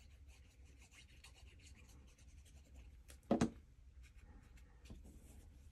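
Faint scratchy rubbing of a liquid glue bottle's tip being worked across a small piece of cardstock, with one brief louder sound about three and a half seconds in.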